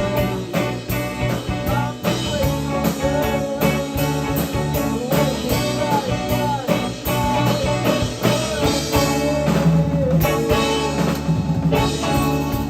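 Rock band playing: guitar over a steady drum beat.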